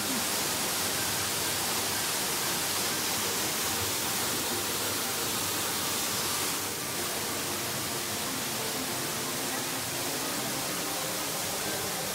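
Small waterfall falling into a rock pool: a steady, even rushing hiss that eases slightly a little past halfway.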